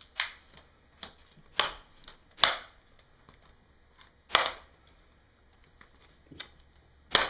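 Plastic screen trim ring (bezel) of an HP Pavilion G7 laptop snapping loose from its clips as it is pried off by hand: about seven sharp cracks at irregular intervals, the loudest about two and a half and four and a half seconds in. The cracking sounds kind of terrible but is the normal release of the bezel clips, not damage.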